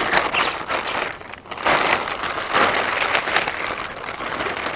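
Large plastic bag rustling and crinkling as it is handled and held open, in irregular bursts.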